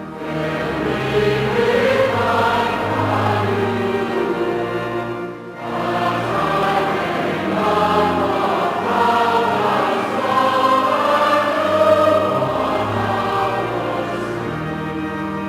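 Choir singing a hymn in sustained phrases, with a short breath between phrases about five seconds in.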